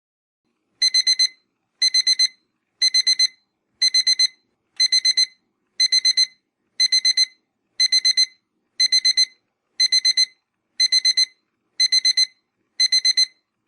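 Digital alarm-clock beeping marks the end of a one-minute countdown. It starts about a second in: bursts of four quick, high-pitched beeps that repeat about once a second.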